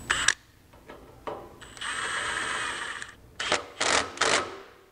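Cordless power tool tightening the bolt that holds a heim-joint link to a steel sway bar: a click, a steady motor run of about a second, then three short bursts as the bolt snugs down.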